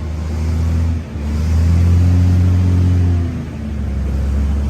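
Large diesel engine running steadily, its note easing off briefly about a second in and again after about three seconds, then picking back up.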